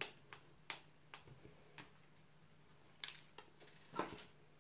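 Scattered sharp clicks and light knocks of a small screwdriver and the plastic housing of a Samsung wireless charger being handled during reassembly, with a quick cluster about three seconds in and another about a second later.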